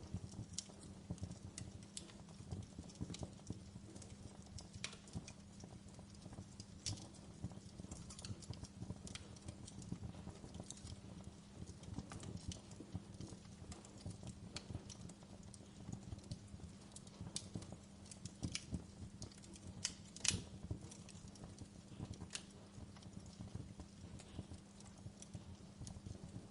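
Wood fire crackling: irregular sharp pops and snaps over a steady low rumble, with one louder pop about twenty seconds in.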